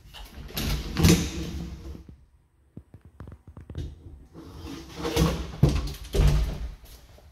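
A hallway closet door being opened about a second in and closed again after about five seconds. Each move is a spell of rubbing noise with a knock, and there are a few light clicks in between.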